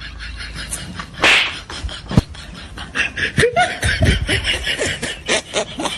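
People laughing in quick, choppy bursts from about three seconds in, after a short loud burst of noise about a second in and a sharp click.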